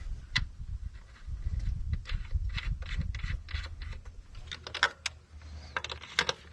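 Metal parts being handled and fitted while a mounting bracket is tried in place: a run of small clicks, clinks and knocks over low rumbling handling noise, with the clicks crowding together near the end.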